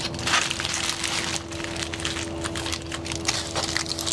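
Wrapping material being folded and crinkled tightly around a smoked turkey breast: irregular crinkles and rustles over a steady hum.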